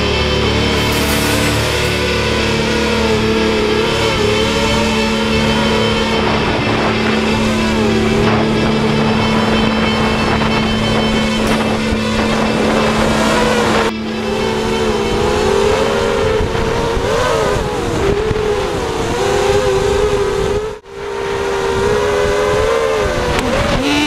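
Brushless motors and propellers of a QAV250 FPV racing quadcopter (Multistar 2204 2300KV motors, 5-inch props) as heard from its onboard camera: a buzzing whine whose pitch rises and falls with the throttle. About 21 s in, the sound briefly drops out.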